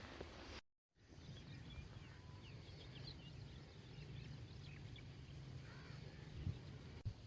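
Faint outdoor ambience with small birds chirping repeatedly over a low background rumble; the audio drops out completely for a moment just under a second in.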